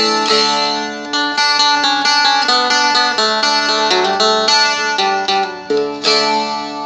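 Seagull Merlin, a small strumstick-style dulcimer, being picked through a song's intro riff. Quick plucked melody notes change over low notes that keep ringing underneath.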